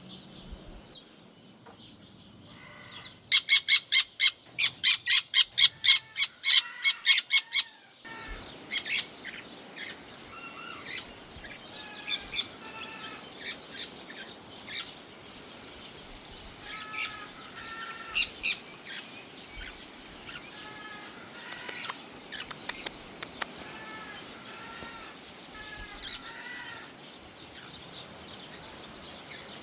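Birds calling. A loud, rapid series of about sixteen identical repeated calls runs for about five seconds, then scattered shorter chirps and calls from several birds follow over a steady background hiss.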